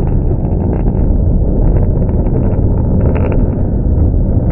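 Blue Angels F/A-18 Super Hornet jets flying past in formation: loud, low jet-engine noise with a rough crackle through it, the crackle strongest about three seconds in.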